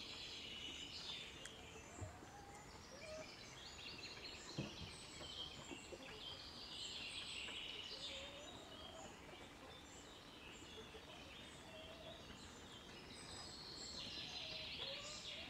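Small songbirds calling: faint bursts of rapid, trilled high notes every few seconds, with short lower whistled notes in between. A couple of soft knocks, the clearest about four and a half seconds in.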